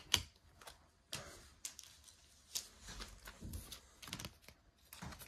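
Trading cards being handled on a wooden tabletop: irregular light clicks and taps with short rustles in between, the sharpest click just after the start.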